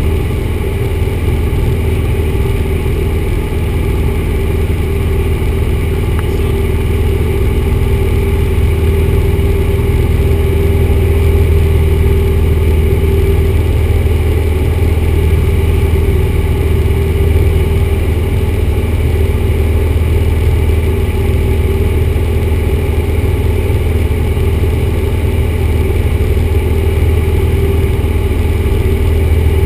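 1974 Cessna 172's four-cylinder Lycoming engine and propeller running steadily in flight, heard from inside the cabin as a loud, even drone with a strong low hum.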